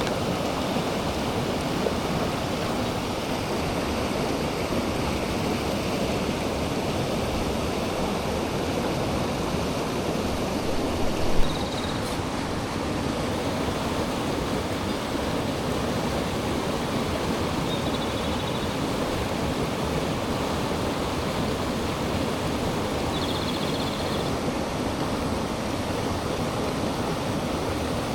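Mountain stream water rushing steadily. There is a brief knock about eleven seconds in and a few short, faint high-pitched chirps.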